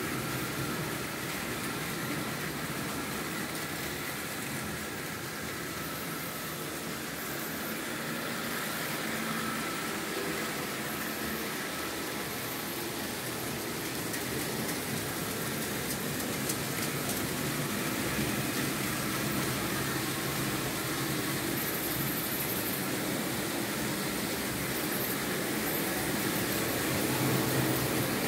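Märklin H0 model trains running on metal track: a steady hum of small electric motors and the rumble of wheels on rails, growing a little louder toward the end.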